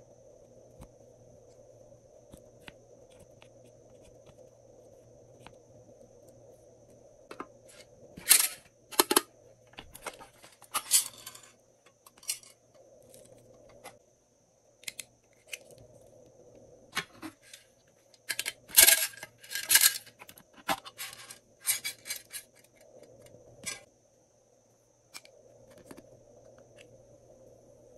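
Pressed eyeshadow being scraped out of a plastic palette with a plastic spatula and dropped into a glass dish of slime base: sharp clicks, taps and short scrapes of plastic on plastic and glass. They come in scattered clusters from about seven seconds in, after a few seconds of faint hum.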